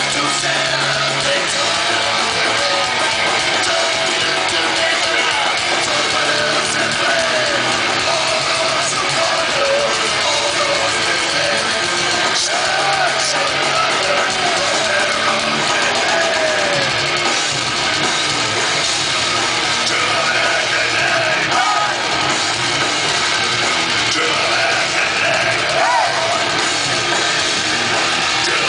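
Thrash metal band playing live: distorted electric guitars and a drum kit, with a singer's voice over the top, steady and loud throughout.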